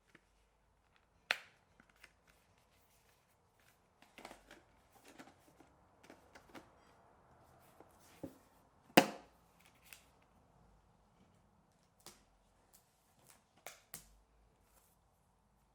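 Hands handling laptop packaging and parts: scattered light taps, clicks and rustles, with a sharp knock about a second in and a louder one about nine seconds in.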